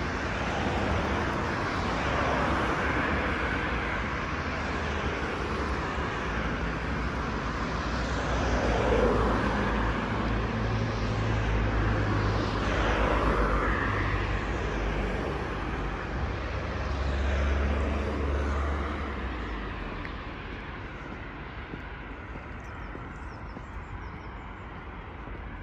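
City road traffic: cars passing one after another, each swelling and fading, over a steady low rumble that quietens for the last few seconds.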